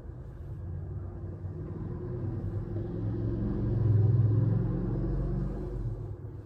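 A low rumble that swells to its loudest about four seconds in, then fades away.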